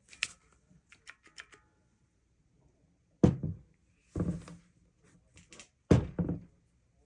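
Handling noise from a heavy composite air impact wrench: a few light clicks, then four heavy thunks spaced a second or more apart. The wrench is not running.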